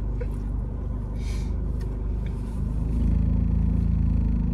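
Car engine running at idle, heard inside the cabin as a steady low hum that grows a little louder about three seconds in.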